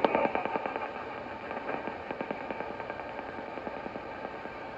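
Sony ICF-2010 shortwave receiver hissing with rapid crackling static in AM mode as it is tuned down between stations. The crackle is loudest at the start and fades within the first second.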